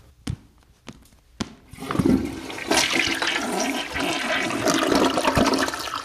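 A few short clicks, then a toilet flushing, with loud rushing water for about four seconds that dies away near the end.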